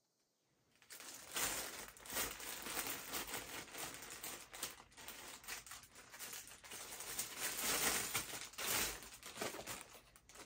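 Clear plastic bag crinkling and rustling in irregular handfuls as a tripod is pulled out of it, starting about a second in.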